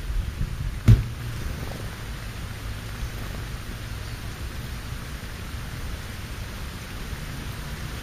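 Wind rumbling on a ground-level microphone, a steady low noise, with one sharp knock about a second in.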